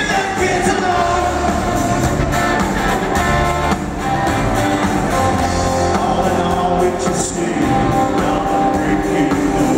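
A live country-rock band playing loud through a hall PA, electric guitars and bass over a steady low end, with a voice singing.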